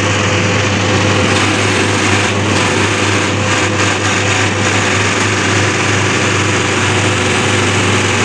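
Diesel injection pump test bench running, its drive turning an inline multi-cylinder fuel injection pump: a steady mechanical running sound with a constant hum and a faint steady tone above it.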